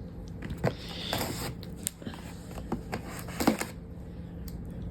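Cardboard flat-pack box and its packaging being handled and opened: scattered rustles, scrapes and clicks, with a faint steady hum underneath.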